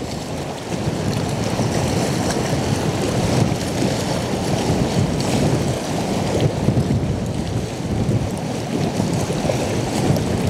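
Strong gusty wind of 30 to 40 mph blowing in rumbling, surging gusts against the van and buffeting the microphone, with a fainter hiss of rain on top.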